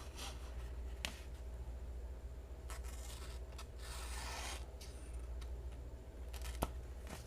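Flipper knife blade rubbing and scraping in a few short strokes during a push-cut sharpness test, with a longer scrape midway and a couple of sharp clicks; the push cut does not go cleanly.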